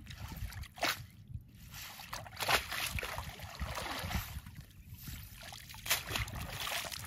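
Water sloshing and splashing as a cast net is hauled out of shallow water and swished back through it, water streaming off the mesh. Sharper splashes come about a second in, halfway through and near the end.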